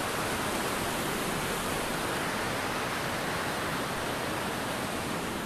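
Mountain river rushing over rocks: a steady hiss of white water.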